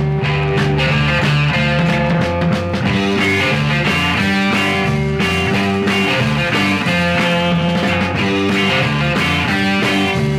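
Instrumental break in a 1960s Chicano rock and soul recording: the full band plays on with a steady beat and no vocals.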